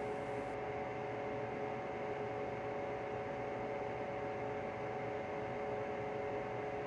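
Steady electronic hum: several held tones over a bed of hiss, unchanging in pitch and level.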